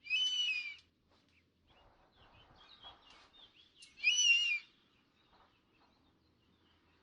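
An eagle calling: two short, high, wavering screams about four seconds apart, with faint chirps between them.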